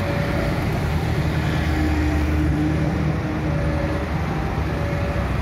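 Steady street traffic noise: the engines of motorcycles and cars running past in a continuous low rumble.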